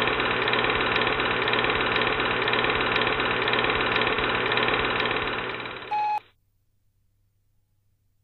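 A steady, rhythmic mechanical clatter with about three ticks a second, like a machine running. It cuts off suddenly about six seconds in, right after a short beep, and near silence follows.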